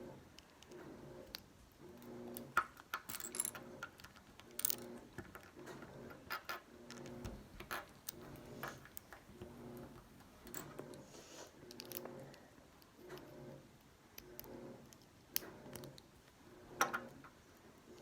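Small plastic LEGO bricks clicking and rattling as they are handled and pressed together, in scattered sharp clicks.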